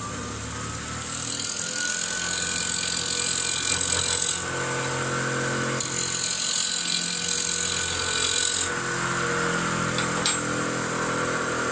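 Wood lathe running with a steady motor whine that rises in pitch over the first couple of seconds. A turning tool cuts the spinning beech blank in two hissing passes of about three seconds each, truing out a slight wobble, and then the lathe runs on alone.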